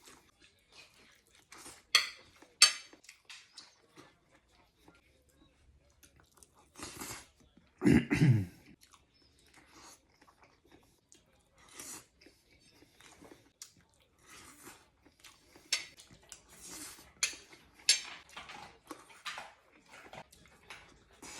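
Close mouth sounds of someone chewing a mouthful of rice and fried eggs, in short scattered bursts with a couple of sharp clicks about two seconds in. About eight seconds in comes one louder, short throaty vocal sound.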